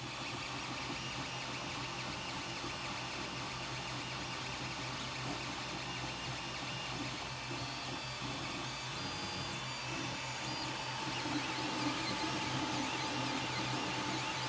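Creality Ender 3 Pro 3D printer mid-print: a steady whir from its cooling fans with its stepper motors whining in short, shifting tones as the print head moves. It grows a little louder over the last few seconds.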